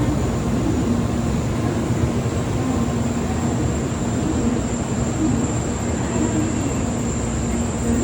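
Shinkansen train running: a steady, even rumbling noise with a low hum and a faint high whine.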